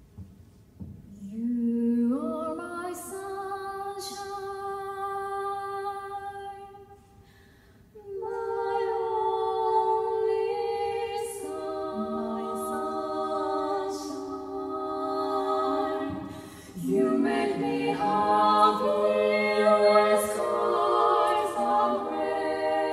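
Women's barbershop quartet singing a cappella in four-part close harmony, holding sustained chords. The song comes in phrases, with two short breaks for breath.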